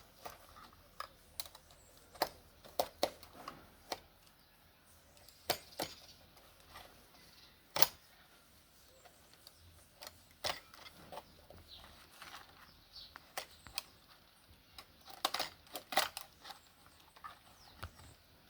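Irregular sharp clicks and taps of hand tools working on a shoe, a few a second at times with quiet gaps between.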